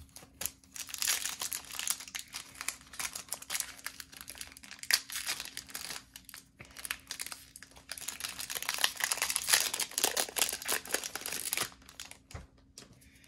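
Foil Pokémon booster pack wrapper crinkling as it is handled and torn open, in irregular crackling bursts that stop about a second before the end.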